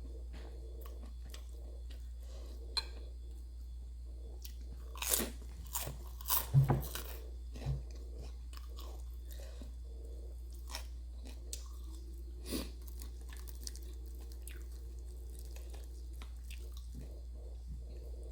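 Close-up chewing and crunching of crisp fried food, with a cluster of sharp, loud crunches about five to eight seconds in and another about twelve seconds in, and softer chewing between them. A steady low hum runs underneath.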